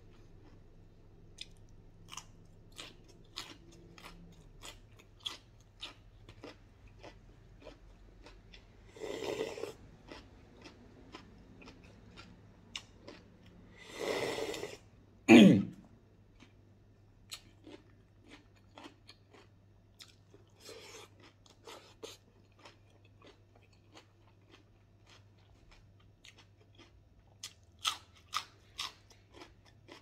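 A person chewing and crunching raw vegetables and grilled bird meat, with many small crisp crunches throughout. Two longer rushing noises come about nine and fourteen seconds in, followed at once by the loudest sound, a short sweep falling in pitch.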